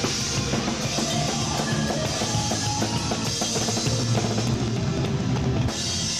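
Live rock band, with drum kit and electric guitars, playing loudly at a sound check. Near the end the band stops on a final hit, leaving the cymbals ringing.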